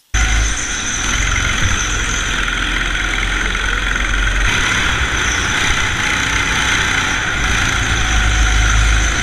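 Go-kart engine running steadily at speed, heard onboard: a deep drone with a steady high whine above it. It cuts in abruptly at the start.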